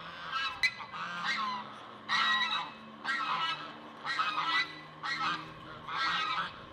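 Flock of domestic geese honking over and over, about one loud call a second.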